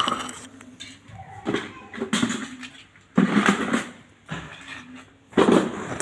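Intermittent metallic clatter and clinks: several separate bursts of hard objects knocking together, with short pauses between.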